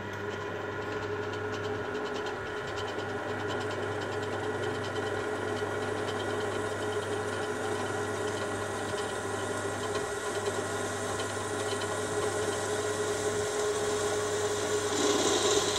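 Benchtop drill press with a 250 W motor running smoothly with a steady hum while its bit drills down into a steel bar. Near the end the cutting noise grows louder and scratchier.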